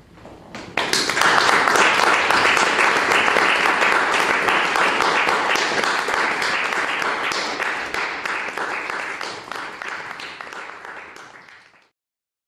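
Audience applauding, starting about a second in, loudest at first and gradually thinning, then cut off abruptly just before the end.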